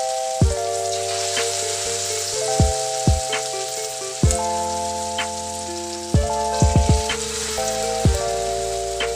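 Background music of sustained keyboard-like chords and a soft kick-drum beat, over a steady high sizzle like food frying in a pan.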